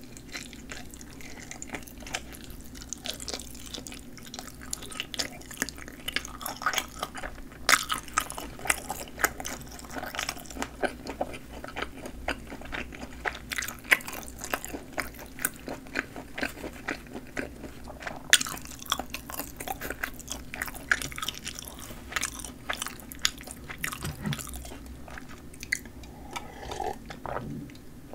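Close-miked chewing of a mouthful of sausage: a dense run of small wet clicks and crunches from the teeth and the snappy casing.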